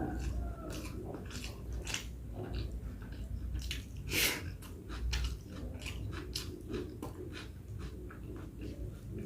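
A person chewing close to the microphone: a mouthful of rice with dal and vegetables, with many short, wet mouth and lip clicks. There is one louder rushing sound about four seconds in.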